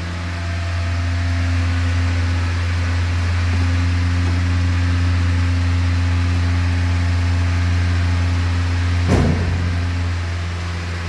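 Rebuilt Hyundai G4FD 1.6 GDI four-cylinder engine running at a steady speed, an even hum, with one short knock about nine seconds in.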